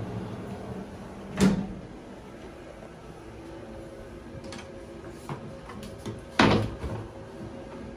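Slatted plastic roll-up bathtub cover being handled and rolled back, its slats knocking and clattering on the tub rim. There is a sharp knock about a second and a half in, a few light clicks, and the loudest clatter at about six and a half seconds.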